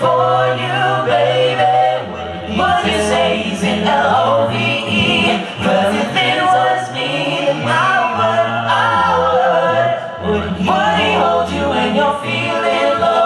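Male a cappella group singing a boy-band medley in close harmony over a sung bass line that steps between held low notes.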